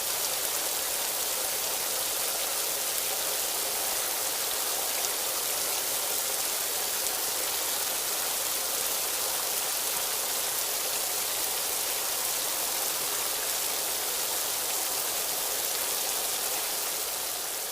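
Steady rain falling, an even dense hiss of drops, fading out near the end.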